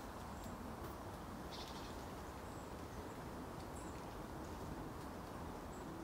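Quiet outdoor woodland ambience: a steady low background hiss, with a few brief, faint high bird chirps scattered through it.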